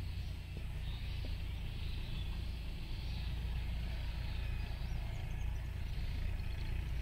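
Steady low rumble of outdoor background noise, with a faint hiss higher up.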